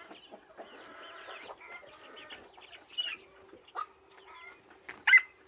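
Farmyard chickens clucking, with a few short, sharp calls breaking in, the loudest near the end.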